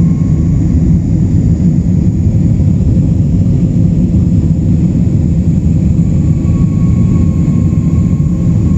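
Jet airliner's engines and rushing air, heard from inside the cabin during the climb after takeoff: a loud, steady, deep rumble with a faint steady whine above it.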